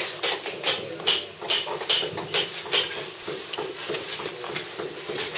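Stiff-bristled brush sweeping stone dust off a block of Bath stone, in short scratchy strokes about two or three a second.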